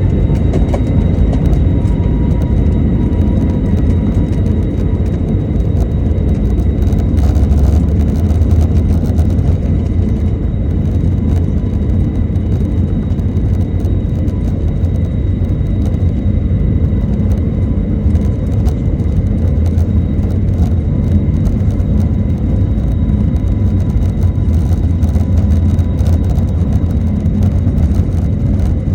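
Airbus A321neo jet engines running: a loud, steady low rumble with a faint, even whine above it, holding level without rising or falling.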